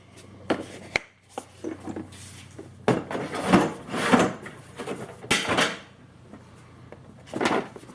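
Tools being handled in a workshop: scattered clunks, knocks and rattles of metal gear being moved about, with the loudest clattering a few seconds in and two more bursts later.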